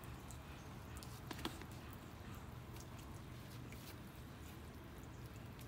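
Faint scattered clicks and rustles of a dog being posed by hand on an artificial-turf table, over a low steady hum; a couple of sharper clicks about a second and a half in.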